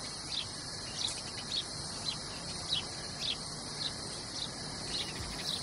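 Nature ambience: short, high bird chirps repeating about twice a second over a steady, high-pitched insect chorus like crickets.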